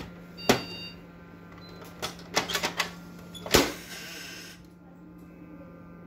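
HP LaserJet P2055dn laser printer running its start-up movement: a steady motor hum with sharp mechanical clicks, one about half a second in, a quick run around two seconds and the loudest a little after three and a half seconds. The hum stops at the very end, as the printer makes only a slight movement and shuts down instead of finishing its start-up.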